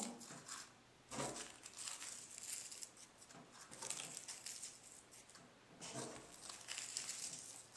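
Tissue paper crumpled by hand and pushed into a small paper cup, a soft crinkling that comes in a few short spells.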